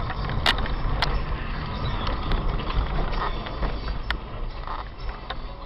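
Road and engine noise of a car driving, heard inside its cabin: a steady low rumble with a few sharp clicks or rattles, about half a second in, a second in and about four seconds in.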